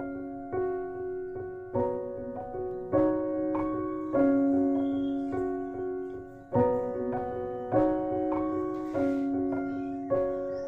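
Slow background piano music: single notes and chords struck about once a second, each left to ring and fade.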